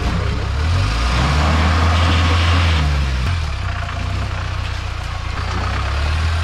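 Mahindra Thar's engine running under load as the 4×4 crawls over rocks, its revs rising about a second in and again near three seconds.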